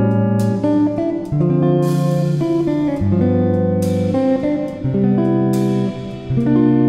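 Background music led by plucked guitar, with notes and chords changing about every half second to second.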